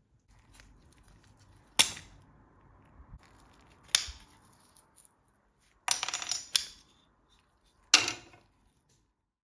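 Tools striking or being set down on metal: sharp clanks with a brief ring, about two seconds apart, with a short rattling clatter about two-thirds of the way in.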